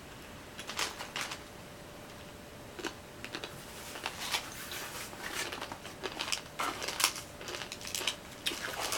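Plastic snack packaging crinkling and rustling as it is handled: a run of short, irregular crackles that becomes busier after about three seconds.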